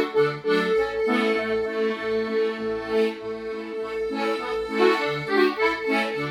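Instrumental backing music of a gospel song between sung lines: one steady held note under changing chords, with a bass line playing short separate notes.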